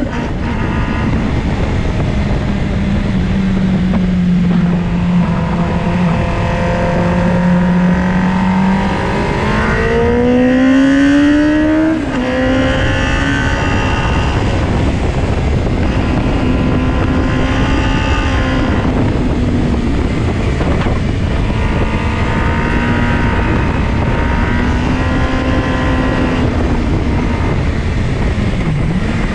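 Motorcycle engine heard from an onboard camera at track speed, with heavy wind rush on the microphone. The engine note holds fairly steady, climbs as the bike accelerates from about nine to twelve seconds in, then drops sharply at a gear change.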